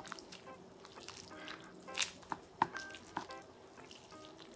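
Wooden chopsticks stirring and lifting ramen noodles in broth in a pot: a run of short wet clicks, drips and splashes, the sharpest near the middle.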